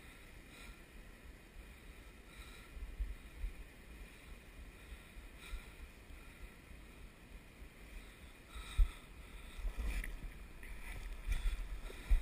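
Low, uneven rumble of wind on the microphone with scattered soft knocks; a sharp knock about nine seconds in is the loudest, with a few more near the end.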